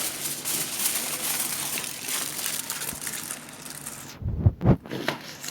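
Rustling, crinkling handling noise, then two heavy knocks about four and a half seconds in.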